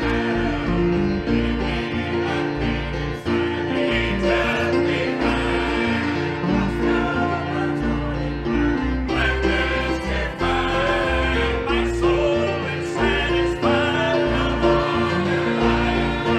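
A group of singers performing a gospel song with instrumental accompaniment, the bass stepping from note to note beneath the voices.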